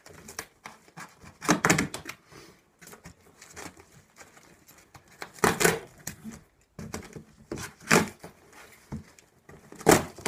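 Packing tape on a cardboard shipping box being slit and torn open and the flaps pulled back: scratching and rustling of cardboard, with four louder tearing sounds spread through.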